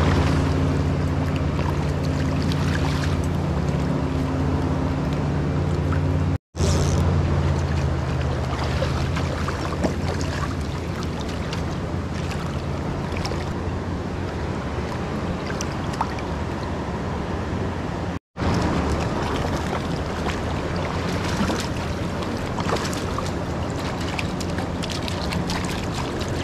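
Water moving around a wading angler, with wind on the microphone and a steady low hum that is strongest for the first few seconds, plus a few small clicks. The sound cuts out abruptly twice.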